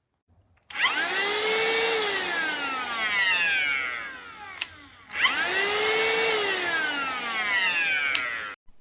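HOMEKANE cordless handheld vacuum cleaner's motor running in two bursts of about four seconds each. Each time the whine rises quickly at switch-on, holds briefly, then falls steadily in pitch, with a sharp click near the end. The second burst cuts off suddenly.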